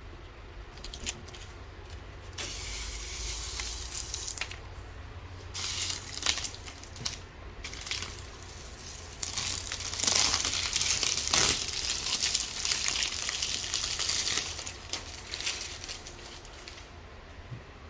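Packaging being handled, with stretches of rustling and crinkling and scattered clicks and knocks. The longest, loudest stretch of rustling comes about halfway through.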